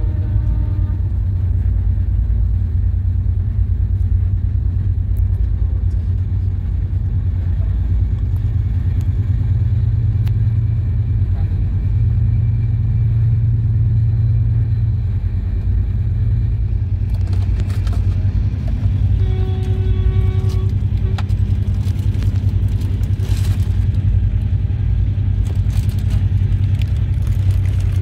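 Steady low rumble of an Indian express train running along the track. From about two-thirds of the way in, scattered clicks and rattles and a few brief tones are heard over it.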